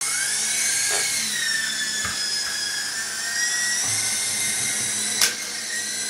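Syma S032G radio-controlled model helicopter's small electric motors and rotors whining in flight, the pitch rising at the start and then drifting gently with the throttle. A sharp click about five seconds in.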